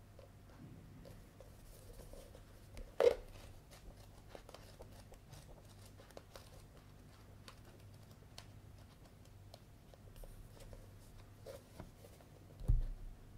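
Hands handling a paperback manga volume: soft rustles and many small ticks from the cover and pages, a sharp tap about three seconds in, and a low knock near the end as the book meets the wooden tabletop.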